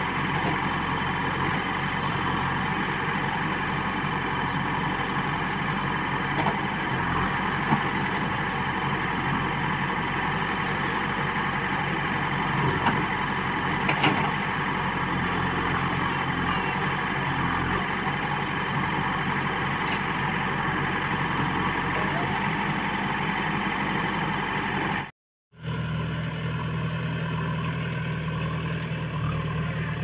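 JCB 3DX backhoe loader's diesel engine running steadily while the backhoe digs, with a few faint knocks. The sound cuts out for an instant near the end and resumes with a slightly different engine tone.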